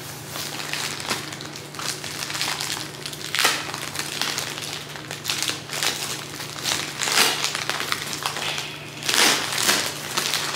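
Plastic packaging, a white mailer and a vacuum-sealed clear plastic bag, crinkling and crackling as it is pulled open by hand, in irregular bursts that are loudest near the end.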